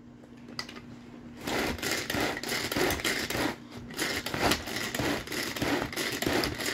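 Tupperware pull-cord chopper pulled again and again, its blades whirring through vegetables inside the container. It makes a rasping whirr that pulses about twice a second, starting about a second and a half in.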